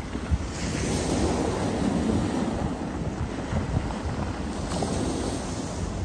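Black Sea surf breaking and washing up a pebble beach, with wind buffeting the microphone. The wash swells about half a second in and again near the end.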